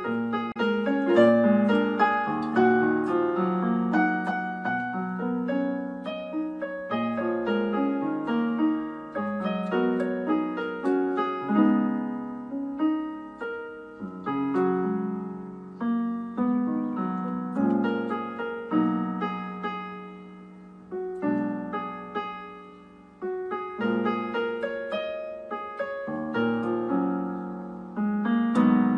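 Background piano music: a slow melody of struck notes ringing out over chords, softening for a few seconds past the middle.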